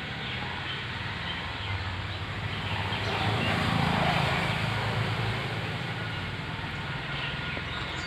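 Low rumble of passing motor traffic that swells to a peak about halfway through and then fades.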